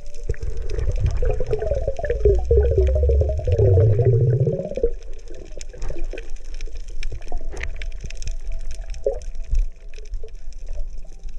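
Water sloshing and gurgling, loudest for the first five seconds, then dropping to scattered small splashes and clicks.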